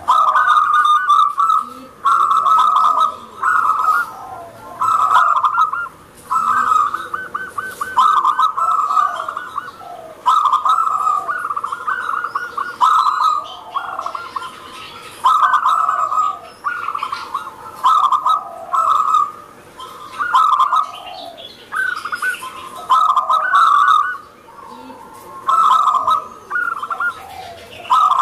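Zebra dove (local perkutut) singing: a loud, rolling, trilled cooing phrase repeated over and over, roughly once a second.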